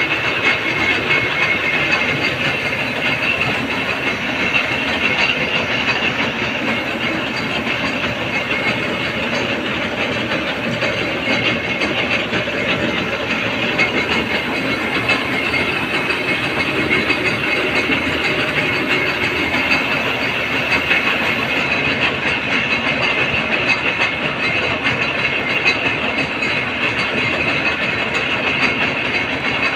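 Gear-cutting machine running steadily: a continuous, dense metallic clatter of the machine's moving parts, with no pauses.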